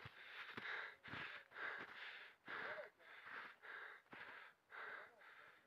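Footsteps crunching in snow, about two steps a second at a steady walking pace, quiet.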